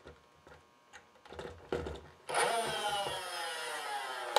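Stock flywheel motors of a Nerf Ultra 2 blaster, rewired for a 3S LiPo, spin up suddenly about two seconds in after some light plastic clicking, then whine down in falling pitch as they coast. A sharp click comes near the end.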